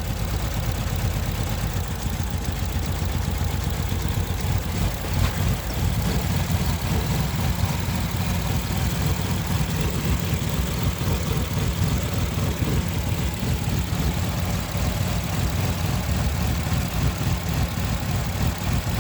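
2015 Infiniti QX60's V6 idling roughly with the ignition coil of cylinder 2 unplugged, running on the remaining cylinders during a coil-pull test for a misfire. The idle is a steady low pulsing with uneven swells, and the owner says the engine has a bad shudder.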